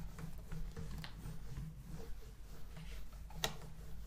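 Faint rubbing of a duster wiping a whiteboard clean, over a steady low hum, with one sharp tap about three and a half seconds in.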